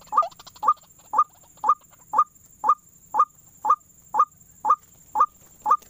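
White-breasted waterhen calls played from a lure loudspeaker: one short call note repeated at an even, unbroken pace of about two a second, used to draw the birds to the snares.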